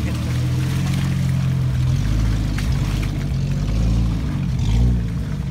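Jeep Grand Cherokee engine running under load as the 4x4 drives off through deep mud, with tyres churning in the mud. The low rumble swells about two seconds in and again, loudest, near the end.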